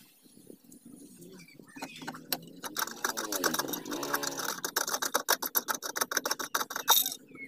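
A spare wheel's hold-down wing nut being unscrewed by hand on its threaded bolt, giving a fast run of metallic clicks and rattles, with a louder click near the end.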